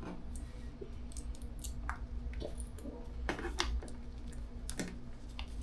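Irregular light clicks and taps of plastic LEGO pieces being handled, a few sharper clicks about midway, over a steady low hum.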